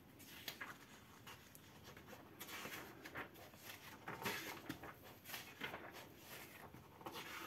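Pages of a thick paperback comic collection being turned by hand: soft, irregular paper rustling and flicking.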